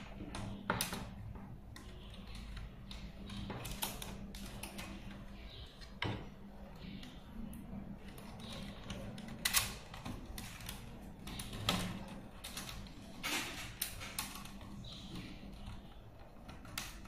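Irregular clicks and knocks of plastic fiber optic splice trays and the closure frame being handled, with a few sharper taps among lighter rustling.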